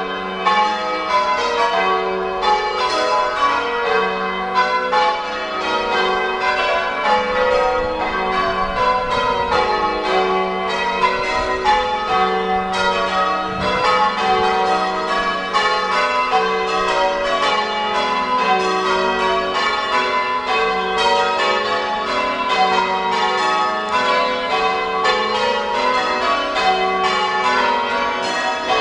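Church bells ringing: many bells struck one after another in a fast, even, unbroken rhythm, each strike ringing on under the next.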